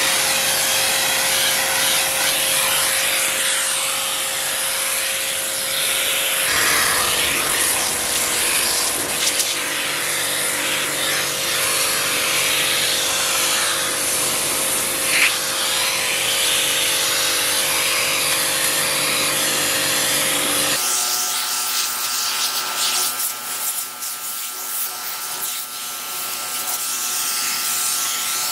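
Pressure washer jet hissing steadily against a laptop's lid, over the steady hum of the washer's motor. About 21 seconds in the sound changes abruptly: the low hum drops away and a higher steady tone carries on under the spray.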